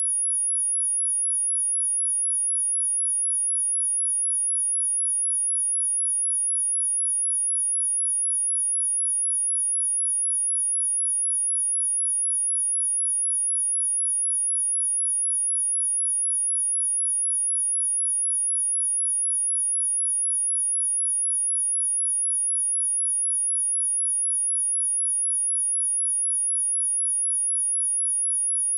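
A steady, unwavering high-pitched pure tone: a 10348 Hz sine-wave test signal, used to test speakers and shake water and dust out of them.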